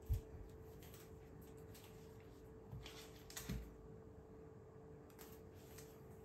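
Quiet handling of the phone and its box: a soft thump just after the start, then light scuffs and clicks around three seconds in, over a faint steady hum.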